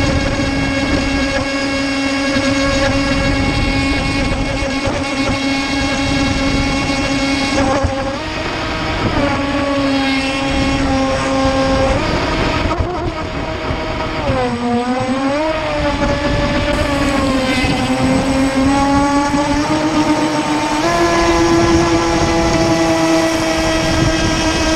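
AquaCraft MiniMono RC speedboat's electric motor whining at speed, heard from on the boat itself, over a rush of water against the hull. The pitch shifts with the throttle, dipping and climbing again about halfway through and stepping higher near the end.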